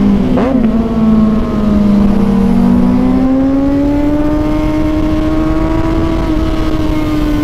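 A sport motorcycle's engine pulling under way, its note climbing slowly over several seconds, then easing off slightly near the end. A second, lower engine note runs alongside for the first few seconds.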